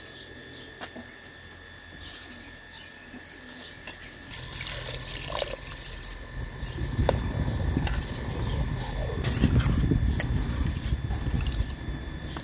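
Metal ladle stirring a large pot of thick stew, the liquid sloshing, getting louder about halfway through, with a few sharp clinks of the ladle against the pot.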